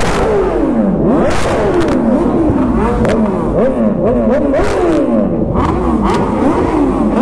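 Several superbike engines being revved hard over and over, their pitch sweeping up and down in overlapping rises and falls, with a few sharp cracks among them.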